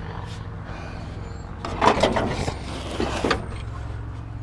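Old truck radiator scraping and knocking against the metal radiator support as it is pulled out by hand, in two bursts about two and three seconds in.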